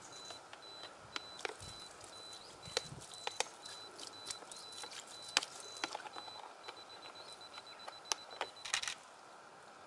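Water poured from a plastic bottle splashing into a padded carp cradle to wet the fish, with many scattered sharp clicks and crackles of handling, bunched together just before the end.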